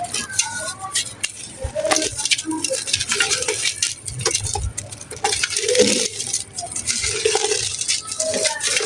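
Dry clay and gritty mud crumbling, a dense irregular run of small crunches and crackles.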